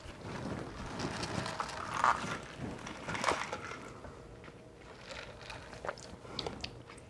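Soft rustles and a few light clicks of plastic iced-coffee cups being handled and drunk from, one through a straw.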